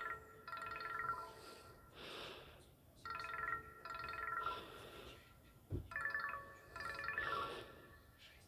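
Ringtone from an S-TELL C552 Android phone's speaker: a short phrase of bright electronic notes followed by a hissy swish, looping about every three seconds. A brief low thump comes about two-thirds of the way through.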